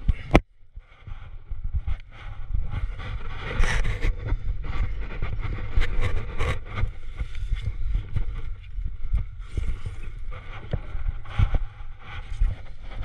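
Low, gusty rumble of wind buffeting the camera's microphone, with scattered scrapes and knocks as taped hands and climbing shoes jam into a sandstone crack. A sharp, loud knock comes about half a second in.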